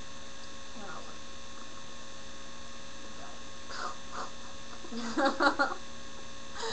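Steady electrical hum with several fixed tones, the background noise of a webcam recording, with faint voices and a brief burst of voice sounds about five seconds in.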